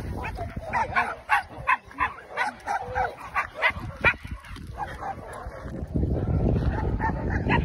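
Hunting dogs barking in a quick run of short, high yips, about three a second, which stop about four seconds in. A steady rushing noise follows near the end.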